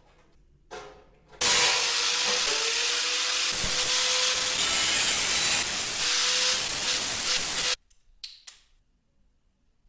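Paint spraying: one long steady hiss of spray, about six seconds, starting sharply a second and a half in and cutting off suddenly, with a faint wavering whistle under it. A couple of faint knocks come just before and just after.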